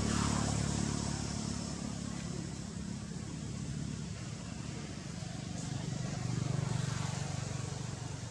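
Low engine rumble of passing motor vehicles. It is loudest at the start and swells again about six and a half seconds in.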